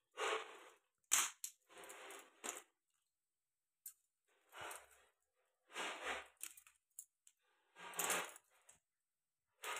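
Hands working at a live crab bound with string, giving short bursts of scratchy, cracking handling noise, each under a second long, with silent gaps between them.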